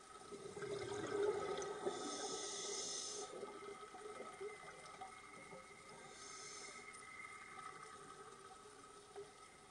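Underwater sound of scuba breathing through a regulator: a bubbling gurgle of exhaled air in the first couple of seconds, then a hissing breath, with another shorter hiss a few seconds later. A steady faint hum runs underneath.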